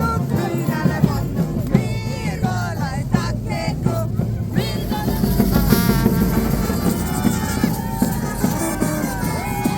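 Music: a song with singing over a dense instrumental accompaniment.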